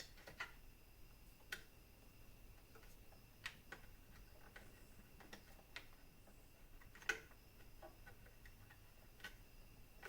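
Faint, irregular clicks and light taps of hand tools and parts being handled, about one every second or two, the loudest about seven seconds in. Under them runs a faint steady high whine.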